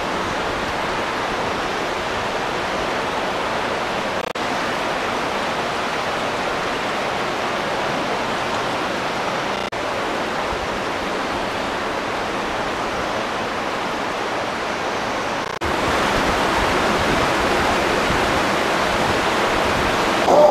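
Steady rushing of a flowing stream. It breaks briefly about 4, 10 and 15 seconds in and is louder after the last break.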